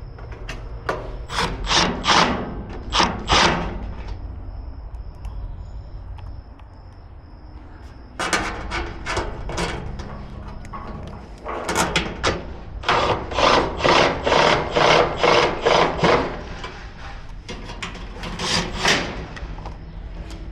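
Hand ratchet tightening bolts in a stainless gas grill's frame: runs of short scraping strokes, about two a second, broken by pauses.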